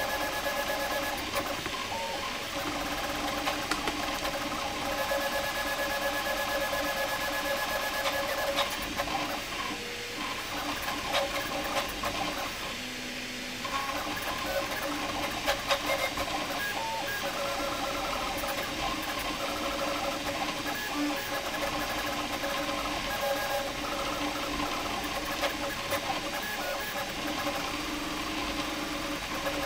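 Prusa MK4 3D printer running its input shaping firmware mid-print. Its stepper motors whine in steady tones that keep shifting and breaking off as the print head changes moves, with scattered light ticks.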